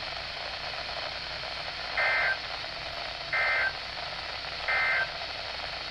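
Three short data bursts of an Emergency Alert System / NOAA Weather Radio SAME signal, a warbling two-tone burst each about a third of a second long, about a second and a third apart. This is the end-of-message code marking the end of the flash flood warning broadcast, heard over steady weather-radio hiss.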